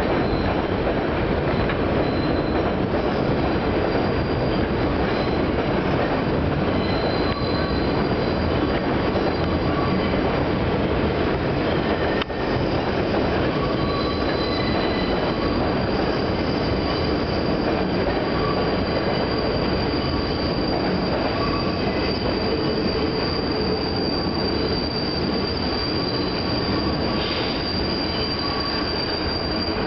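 New York City Subway 2 train running slowly along an elevated steel track, with a steady rumble of wheels on rail and a high wheel squeal that gets steadier and louder in the second half.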